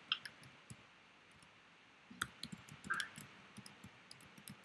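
Faint, scattered small clicks and ticks over quiet room tone.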